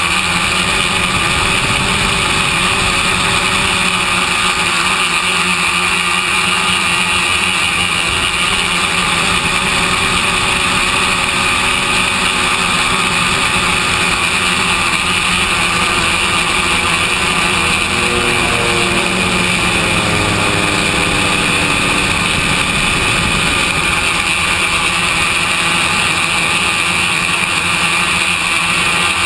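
Electric motors and propellers of a radio-controlled tricopter in flight, a steady buzzing whine mixed with wind rush. The pitch shifts with the throttle about two-thirds of the way through.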